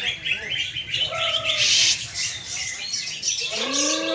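Many caged songbirds singing at once: a dense, overlapping chatter of quick chirps and trills. Near the end a lower, drawn-out call or voice comes in under the birdsong.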